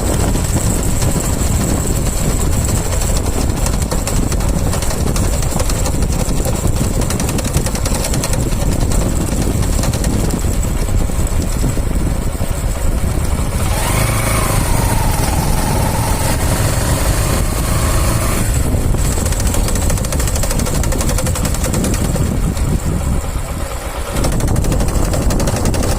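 Bajaj motorcycle engine running with the clutch pulled in, making a harsh khat-khat rattle as if it were breaking up inside, which the mechanic later links to warped clutch plates or pressure plate. About halfway through it goes louder and higher for a few seconds.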